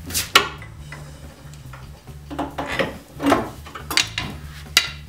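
Steel pry bar and new cast-steel drop spindle clanking and knocking against the suspension as the spindle is levered onto the ball joint studs: a handful of sharp metallic knocks at uneven intervals, with a few scrapes between them.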